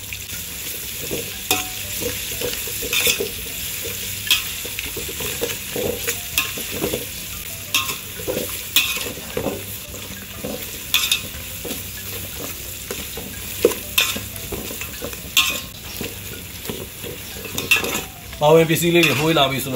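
Onions, dried chillies and garlic-ginger paste sizzling in hot oil in a metal pot as a metal ladle stirs them, scraping and knocking against the pot about once a second.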